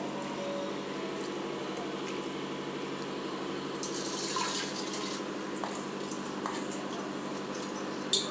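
Soaked basmati rice being crumbled by hand in a steel bowl, with wet squishing and dripping. About halfway through it is tipped and scraped into a pressure cooker, and a sharp knock comes near the end.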